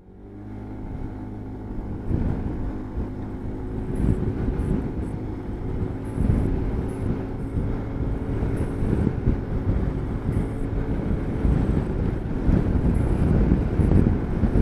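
Motor scooter engine running at a steady note while riding, with heavy wind buffeting the microphone. It fades in from silence at the start.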